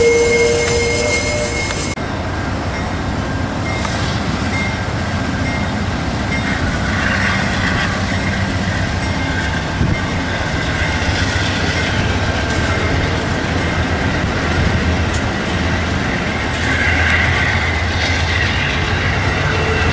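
Amtrak Superliner bilevel passenger cars rolling past on steel rails as the train leaves the station. The wheels squeal on the rails for the first couple of seconds, then stop suddenly, leaving a steady rumble and clatter of wheels over the track.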